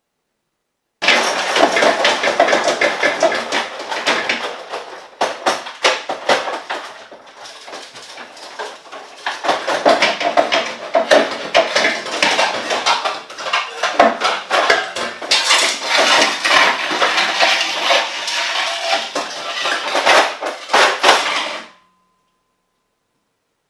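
Kitchen cupboards making loud, continuous clattering and rattling, like crockery and cutlery shaking inside them. The noise starts about a second in, eases for a few seconds in the middle, builds again and stops suddenly near the end.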